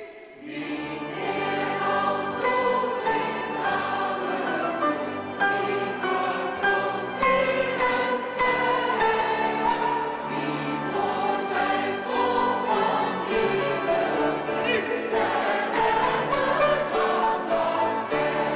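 Mixed choir singing with grand piano accompaniment, the music starting about half a second in.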